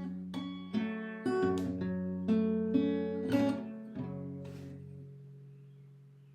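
Acoustic guitar strummed and picked in a run of chords, then a final chord left to ring and fade out slowly over the last couple of seconds.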